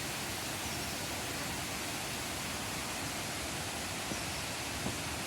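Steady, even rushing of a small waterfall, with a couple of faint ticks about four and five seconds in.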